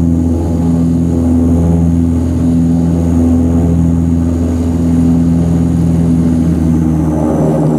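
Antonov An-24RV's Ivchenko AI-24 turboprop engines and propellers running at taxi power, heard through the cabin window: a steady low drone with a slow throbbing beat about once a second. The pitch shifts slightly near the end.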